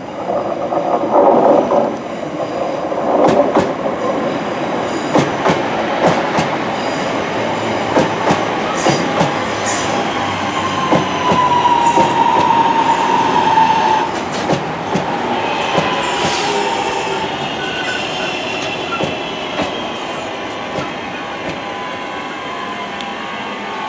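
A West Midlands Railway Class 323 electric multiple unit, two units coupled, running through the station. Its traction motors whine with a pitch that glides, clearest about halfway through, over the clicking of wheels across rail joints and points.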